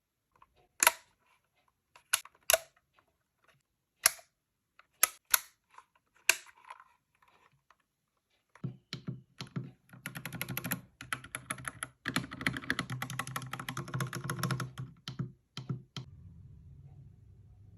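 EvoFox Katana X2 mechanical keyboard with Outemu Red linear switches: a handful of single keystrokes clacking one at a time, then fast continuous typing from about nine seconds in, which stops near the end.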